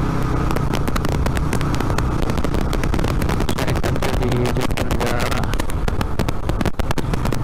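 A 2007 Yamaha Vixion's 150 cc single-cylinder four-stroke engine running while the motorcycle is ridden at about 40 to 50 km/h, heard along with road and wind noise and frequent crackles.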